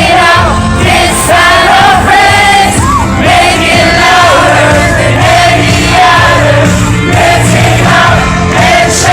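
Praise music: singing voices carrying a melody over a steady bass line, loud and continuous.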